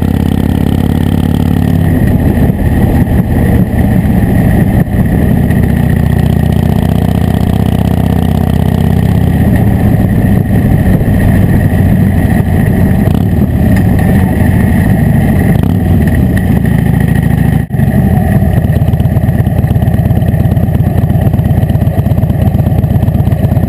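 Harley-Davidson Dyna Wide Glide's V-twin engine running loud as the motorcycle rides along, picked up right beside the engine, with a momentary break about eighteen seconds in.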